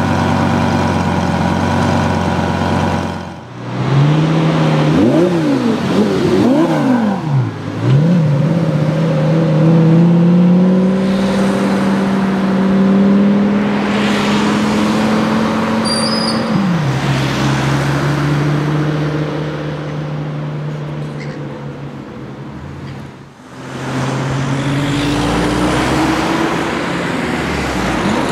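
Lamborghini Gallardo Superleggera's V10 engine idling, then blipped in several quick revs, then pulling away with its note climbing steadily before dropping suddenly; later it runs on again, rising as the car accelerates.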